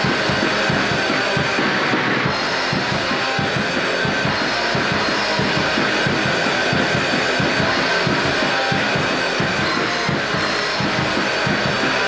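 Crust punk band recording: distorted electric guitar and bass over fast, dense drum-kit playing, at a steady, loud level.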